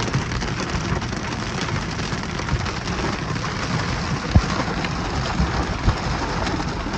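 Small hail and wind-driven rain pelting down in a thunderstorm: a dense, steady patter of small ticks, with two sharper knocks after the middle.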